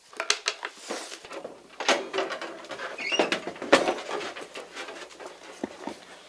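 Sheets of paper rustling and being handled, a handwritten manuscript, with scattered light knocks and a brief squeak about three seconds in.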